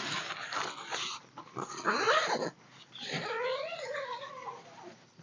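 Animal cries: wavering, whining calls that slide up and down in pitch, a short one about two seconds in and a longer one from about three seconds, amid rustling noise.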